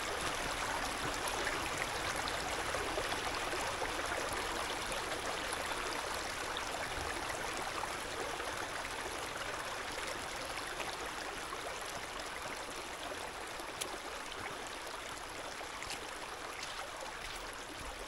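A small brook running shallowly over stones: a steady rushing and trickling of water, easing off slightly toward the end.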